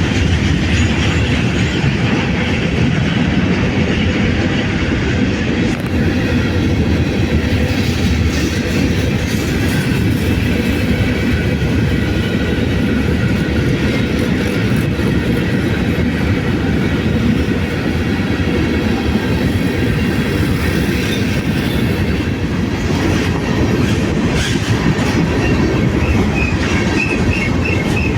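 Freight train cars rolling past close by: a steady low rumble with wheels clattering over the rail joints.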